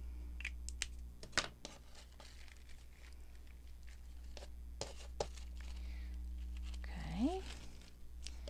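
Paper being handled: scattered rustles, crinkles and light sharp taps, including some tearing, over a steady low hum.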